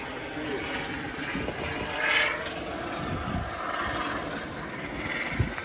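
A hiker's heavy breathing close to the microphone: a few slow, loud breaths over a steady rush of noise.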